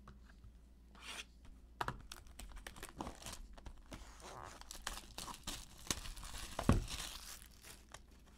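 Clear plastic shrink wrap being torn and peeled off a cardboard trading-card box, crackling and crinkling in irregular bursts, with one sharp thump about two-thirds of the way through.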